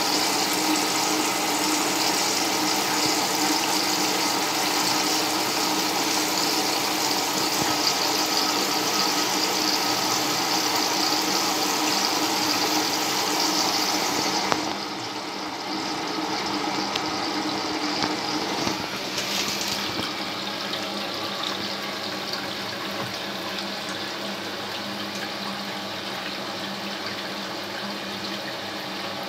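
Washing machine filling for the pre-wash: water rushing in through the detergent drawer with a steady hiss. About halfway through the flow changes and the sound becomes quieter and duller.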